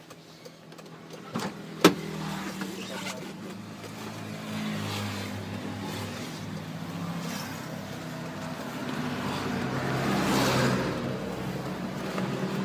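A sharp knock about two seconds in, then a Mitsubishi Fuso truck's diesel engine running steadily, heard from inside the cab. It swells a little twice.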